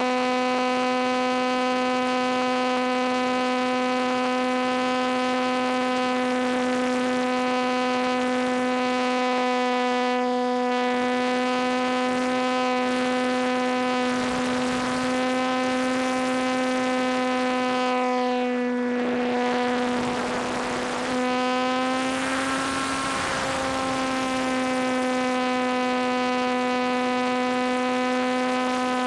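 Electric brushless motor and propeller of a ParkZone T-28 Trojan RC plane, heard from a camera on board. The motor gives a steady high whine at near-constant throttle, with wind rushing past now and then. Around twenty seconds in, the whine dips briefly under a gust of air, then rises a little.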